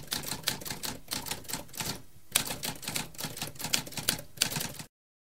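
Typewriter keys clacking in a quick, irregular run of several strokes a second, with a brief pause about two seconds in; the typing cuts off abruptly near the end.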